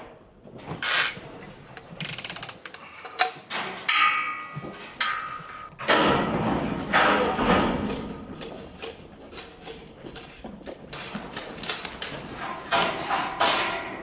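Steel bucking chute and pen gates clanking and rattling, with latches and bars knocking repeatedly; a metal squeal about three seconds in and a longer burst of clatter about six seconds in as the chute gate is pulled open with a rope.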